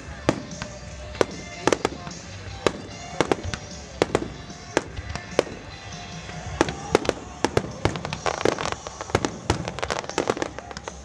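Aerial fireworks shells bursting, a string of sharp bangs with irregular gaps that come thicker and faster after about two-thirds of the way through.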